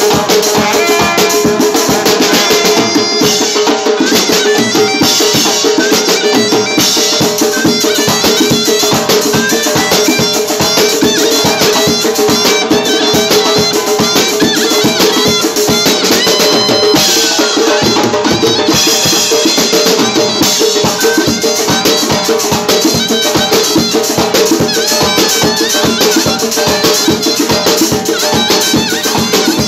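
Live ensemble of drum kit, large barrel drum, frame drum and clarinet playing fast dance music, with dense rapid drumming and a steady held note underneath the melody.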